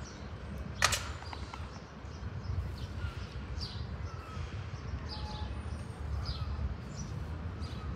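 Outdoor ambience: a steady low rumble with small birds chirping faintly now and then, and one sharp short sound about a second in.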